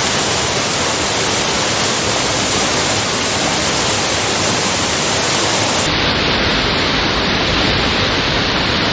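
Waterfall rushing, a loud and steady noise of falling water. About six seconds in, the sound shifts to more low rumble and less high hiss.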